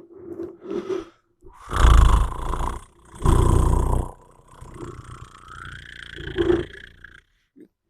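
A person snoring right into the microphone in your ear: two loud snores about a second long each, then a softer, longer one that rises in pitch near its end.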